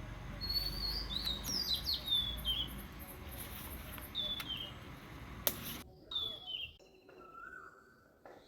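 Small birds chirping: a quick run of short, falling whistled notes in the first few seconds, then single calls, and lower whistles near the end. A sharp click about five and a half seconds in.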